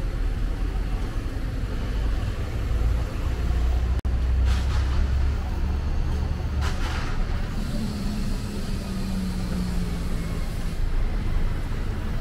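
Street traffic: a motor vehicle's engine running as it passes on the street, the low rumble heaviest in the middle, with two short hisses and then a steady engine hum toward the end.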